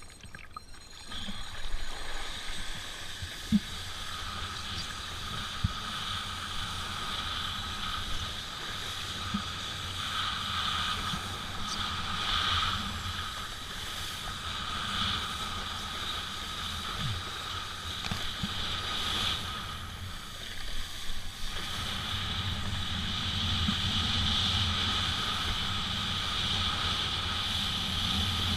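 Steady rush of wind and water while riding on the water, swelling and easing, with a low hum underneath.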